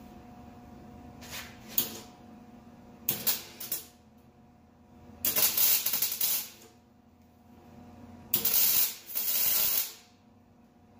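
Arc welder laying tack welds on a steel rear differential mount: a few short hissing bursts, then two longer welds of about a second and a half each, about five and eight seconds in.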